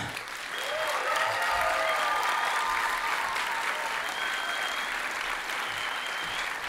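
Audience applauding at the end of a performance. The clapping swells over the first second, holds steady, and eases off a little toward the end.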